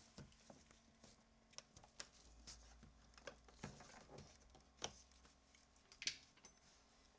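Faint, scattered clicks and light taps of hand work on a car door's interior handle area, with two sharper clicks about five and six seconds in.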